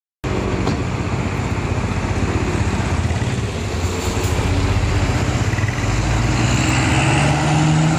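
Diesel engine of a Sinar Jaya coach bus running as the bus passes close by. Its pitch rises toward the end as it accelerates away.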